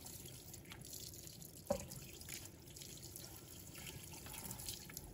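Faint running tap water splashing and dripping over a raw chicken being rinsed in a sink, with one light knock about two seconds in.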